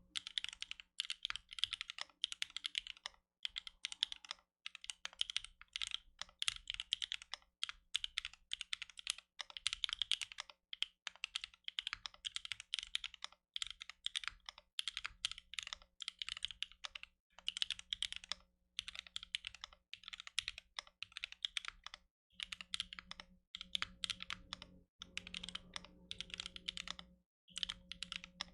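Typing on an aluminium-cased Arc60 mechanical keyboard with lubed Cream+ switches, GMK ABS keycaps and no case foam: fast runs of key clacks broken by short pauses every second or two, over a faint steady hum.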